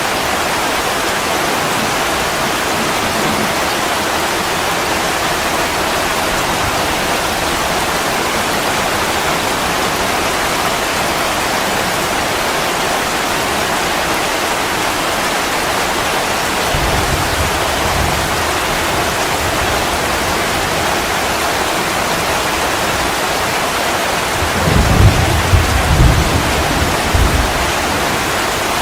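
Steady, heavy rain falling. A faint low rumble of thunder comes about two-thirds of the way through, and a louder rumble of thunder near the end.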